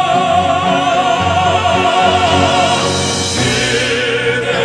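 Classical crossover male vocal quartet singing live with orchestral accompaniment: a long held note with vibrato that ends a little under three seconds in, after which the music moves to a new chord.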